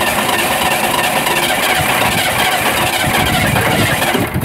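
Ford 232 cubic-inch (3.8 L) V6 with a freshly rebuilt Motorcraft 2150 carburettor running for a few seconds just after starting, then cutting off suddenly at the end. The owner puts its failure to keep running down to a fuel leak at the carburettor.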